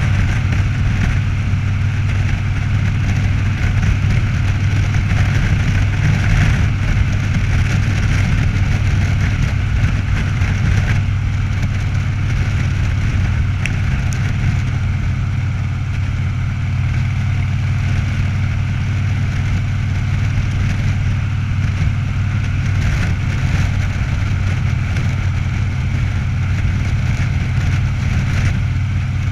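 Cruiser motorcycle engine running steadily at highway cruising speed, a constant low drone, with wind rushing over the microphone.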